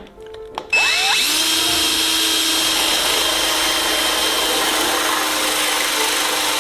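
Power drill with a spring-loaded rivet removal tool starting about a second in, quickly spinning up to high speed, then running steadily while drilling out a rivet head in sheet metal.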